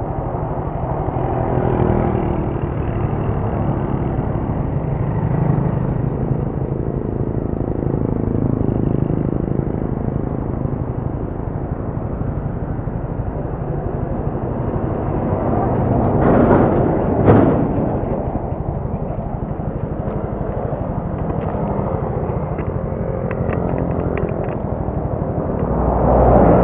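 Motorcycle engine idling steadily, with a louder swell of sound about sixteen seconds in and a rise near the end.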